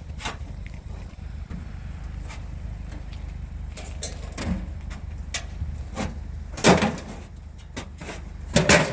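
Steady low vehicle engine hum with scattered knocks, and two loud clanks: one about two-thirds of the way through and one near the end.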